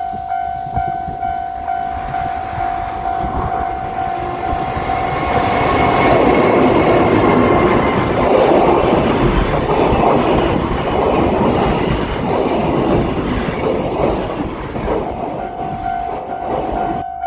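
Japanese level-crossing warning bell dinging about twice a second as a freight train hauled by a JR Freight EF210 DC electric locomotive passes over the crossing. The train's wheels rumble and clatter over the rails, loudest in the middle and drowning the bell, which is heard again near the end as the train clears.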